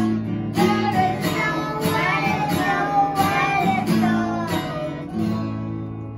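Acoustic guitar strummed about twice a second with young children singing a holiday song. The last strum comes about five seconds in and rings out as the song ends.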